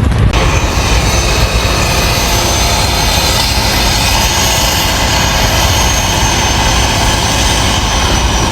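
A loud, steady engine or machine noise with a constant hum, cutting in abruptly just after the start.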